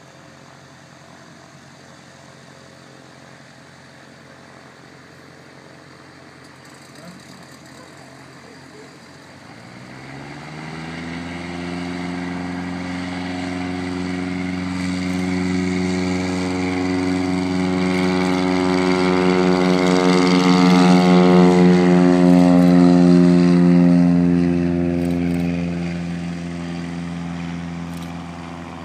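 Cessna F177RG Cardinal RG's four-cylinder Lycoming engine and propeller going to take-off power: about ten seconds in the engine note rises as the throttle opens, then holds steady. The sound grows louder as the aircraft rolls down the runway and climbs out past, peaks around twenty seconds in, then fades.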